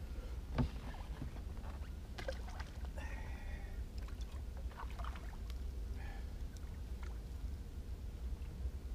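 Handling noises from a fisherman unhooking a freshly caught perch and working his tackle over buckets on a boat. A sharp knock about half a second in is followed by scattered clicks, rustles and light water noises, over a steady low rumble.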